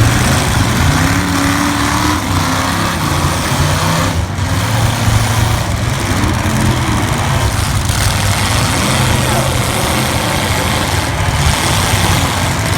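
Several demolition-derby cars' V8 engines running together, their pitch rising and falling as they are revved.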